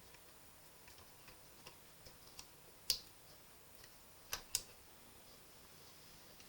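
Scattered light clicks and taps from working inside a vintage sewing machine's gear works while old hardened grease is dug out, the sharpest about three seconds in and a quick pair around four and a half seconds.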